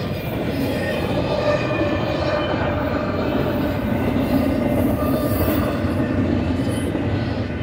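Loaded double-stack container well cars of a BNSF intermodal train rolling past: a steady rumble and rattle of steel wheels on rail, with a faint steady whine above it.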